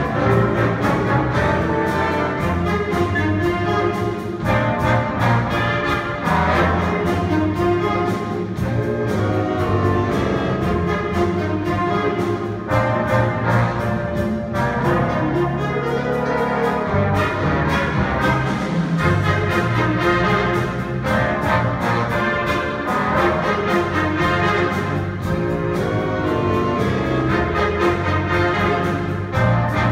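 Middle school jazz big band playing live: saxophones, trumpets and trombones over piano, bass and drums, at a steady full level.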